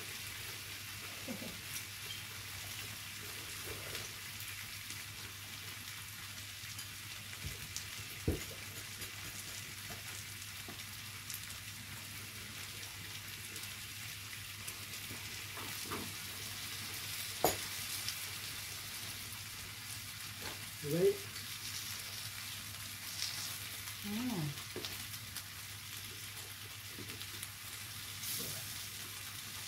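Food sizzling steadily on a tabletop hotpot-and-grill pan, with a few sharp clinks of utensils.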